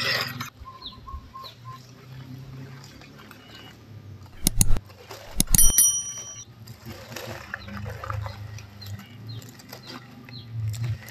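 Subscribe-button sound effect: two sharp clicks about a second apart, the second followed by a short bell-like chime, over faint bird chirps.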